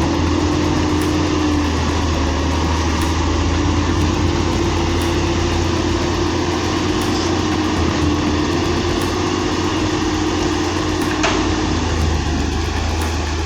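Doosan crawler excavator's diesel engine running steadily, with a low rumble and a steady whine above it, and a brief faint crack near the end.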